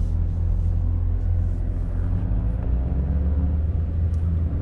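Dodge Challenger Scat Pack's 392 (6.4-litre) HEMI V8 running at low speed, heard from inside the cabin, its note changing slightly about halfway through.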